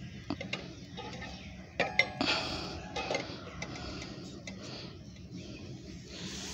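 Stainless-steel stove parts and fuel tank clinking and knocking as they are handled, with one louder metallic clank that rings briefly about two seconds in.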